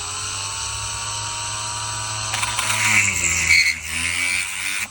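Electric drill running, then biting in about two seconds in: louder and grinding, its motor pitch sagging under load, until it is released at the end and winds down.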